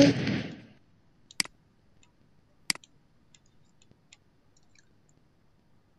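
Two sharp computer mouse clicks about a second and a half apart, followed by a few faint ticks.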